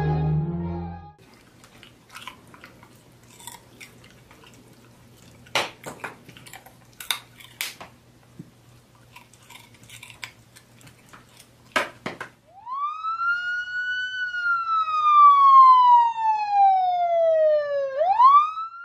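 Siren wailing: one rise in pitch, a long slow slide down, then a sharp rise again near the end. Before it come several seconds of quiet with scattered clicks and taps, after a brief snatch of music at the start.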